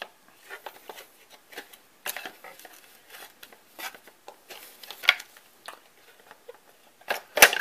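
Scattered clicks, knocks and rattles of a floppy drive being worked out of its mount inside a Macintosh IIci computer case. A sharper click comes near the end.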